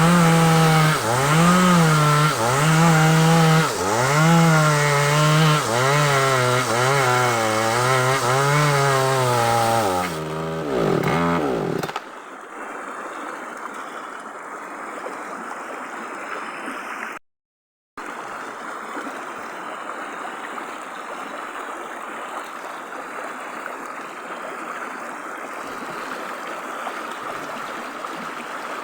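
Chainsaw engine running under load, its pitch rising and falling as it cuts through a sengon log, then winding down and stopping about ten seconds in. After that only a steady hiss remains, broken once by a brief dropout.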